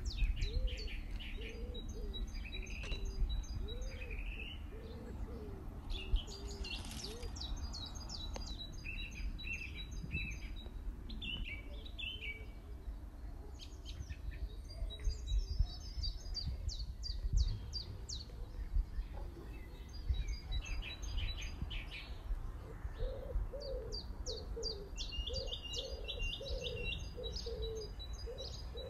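Several birds chirping and trilling in quick high notes, with a low repeated cooing call during the first few seconds that returns near the end. A steady low rumble sits underneath.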